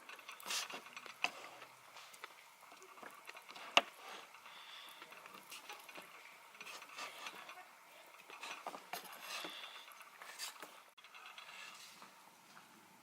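Irregular small mechanical clicks, rattles and knocks, with one sharp click nearly four seconds in.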